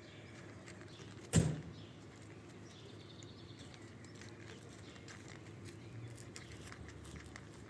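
A single sharp knock about a second and a half in, over a faint outdoor background with light scattered clicks.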